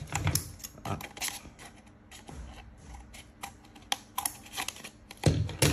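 Steel scissors snipping orange paper around a plastic cup's rim: a run of short, sharp clicks with light paper rustling and handling of the cup.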